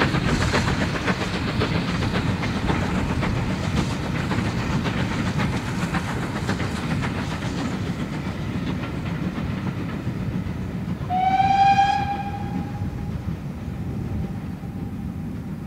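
GWR Small Prairie 2-6-2 tank locomotive No. 4555 working a train past, its chimney exhaust beating over the rumble and clatter of the coaches on the rails. About eleven seconds in the engine's steam whistle gives one call: it slides up slightly, holds for about a second, then trails off.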